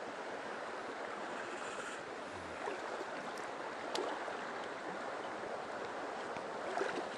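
Mountain stream water running steadily, with a few faint clicks.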